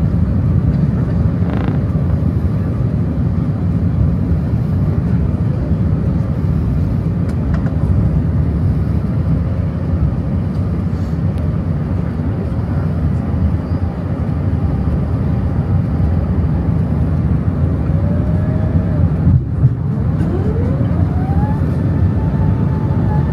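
Steady low rumble of an Airbus A380's engines and airflow heard inside the cabin during the descent, with a faint rising whine near the end.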